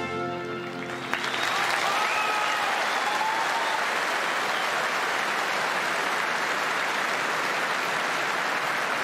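Large stadium crowd applauding, the clapping swelling about a second in as the last sung note fades, then holding steady, with a few whistles and cheers in the first seconds.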